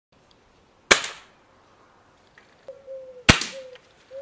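Two sharp shots about two and a half seconds apart from a .22 SMK/Westlake B2 spring air rifle firing without dieseling. The rifle's compression chamber has been properly re-greased, so each shot is the plain spring-and-piston report, not the louder rimfire-like crack of a dieseling gun.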